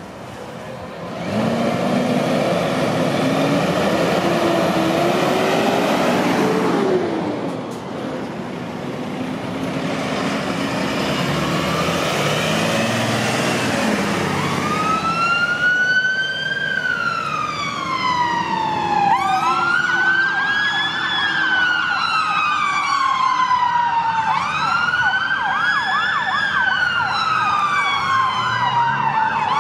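A UK fire engine's engine revs loudly as it pulls away and passes close by, its pitch climbing for several seconds. About halfway through, its siren starts a slow wail that rises quickly and falls slowly, repeating every four to five seconds, and a faster cycling siren tone joins it for the last third.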